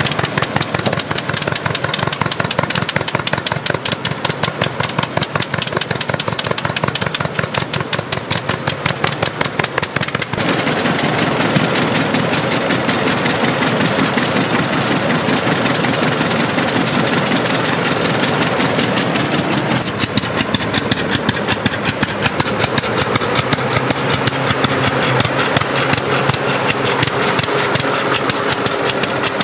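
Hart-Parr 18-36 tractor's two-cylinder horizontal engine running with an even, rapid firing beat. The beat grows louder and fuller about a third of the way in.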